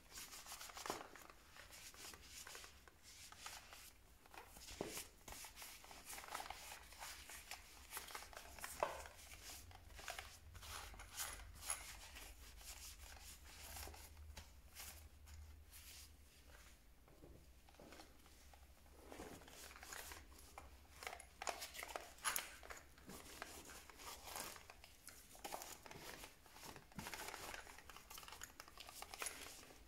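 Faint rubbing and scrubbing on a power drill's housing by hand during cleaning, with irregular short scrapes and small clicks and taps as it is handled.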